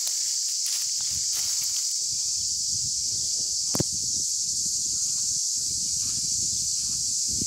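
Cicadas buzzing in a steady high-pitched chorus, over irregular low rumbling on the microphone, with one sharp click nearly four seconds in.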